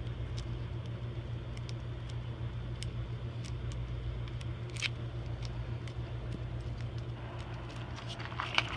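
A steady low hum, with faint scattered clicks and crackles from gloved hands working a two-part putty that is warming as it activates.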